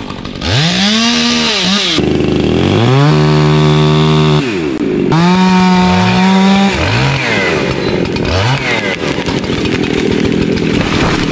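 Two-stroke chainsaw revving in several bursts, its pitch sweeping up and down. It settles to a lower, steady pitch for a couple of seconds while cutting into a tree, then blips a few short revs near the end.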